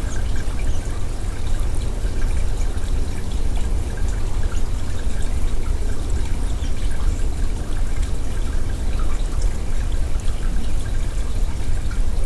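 Tap water running steadily into a sink with small splashes, rinsing out a Pyrex cup.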